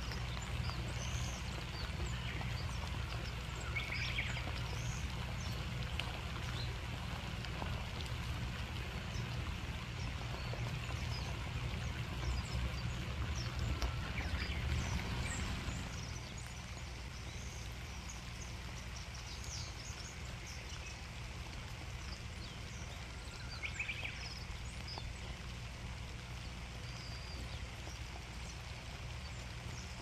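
Outdoor nature ambience: a steady low rumble under an even hiss, with scattered short high chirps. The whole background drops a little about halfway through.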